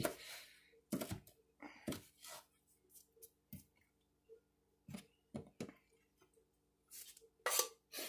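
Kitchen knife chopping fresh herb leaves on a plastic cutting board: short, irregular knocks of the blade hitting the board, spaced out with pauses between strokes.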